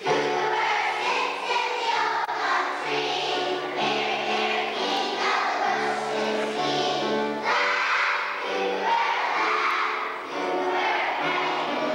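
A group of young children singing a song together in unison, with a lower instrumental line moving note by note underneath.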